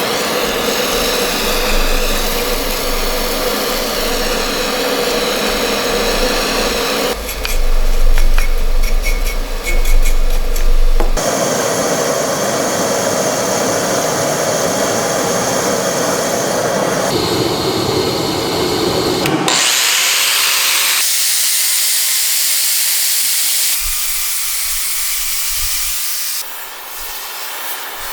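Power tools working steel, in several short takes that change abruptly from one to the next, including a stretch of dense rapid clicking from about seven to eleven seconds in.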